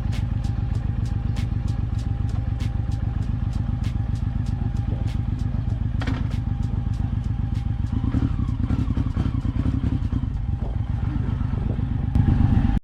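Suzuki Boulevard M109R's 1800 cc V-twin engine running steadily. It gets louder in the last half second, then cuts off suddenly.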